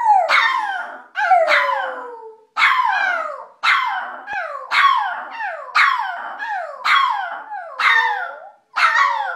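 Pomeranian howling in a run of short yowls, about one a second, each sliding down in pitch.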